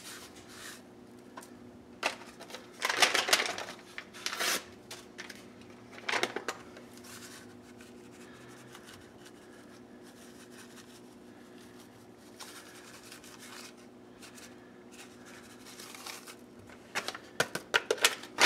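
Paper seasoning packets rustling and crinkling in the hand as dry ranch mix is shaken out of them. The noise comes in short irregular bursts, loudest about three seconds in, with a long quieter stretch in the middle and a busier patch near the end. A faint steady low hum sits underneath.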